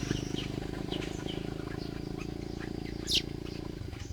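Baya weavers chirping around their nests: scattered short, high chirps, with one louder sharp chirp about three seconds in. A steady low buzzing drone runs underneath and stops just before the end.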